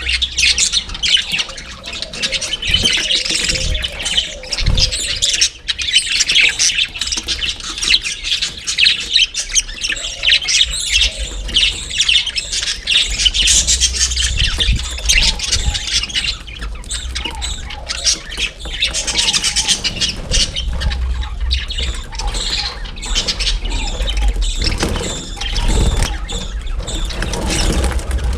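A large flock of budgerigars, around 28 birds, chattering, warbling and squawking together without a break. A low rumble runs underneath and swells near the end.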